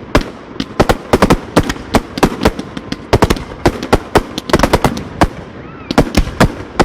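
Fireworks display: a rapid, irregular string of sharp bangs, several a second.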